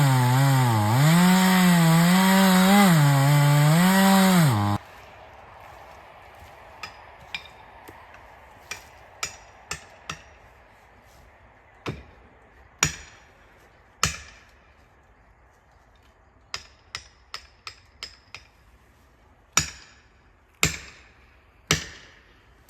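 A chainsaw running and revving up and down, which cuts off about four and a half seconds in. After that comes a string of sharp knocks on wood at uneven intervals, a few of them loud and ringing.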